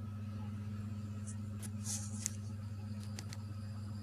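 Trix model of a Ce 6/8 II 'Crocodile' electric locomotive running slowly with its sound on: a steady low hum, with a few faint clicks.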